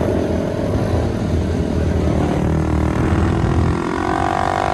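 Small 110cc dirt bike engines running as several bikes ride along a dirt trail, with a steady rumble underneath. One engine note rises a little near the end.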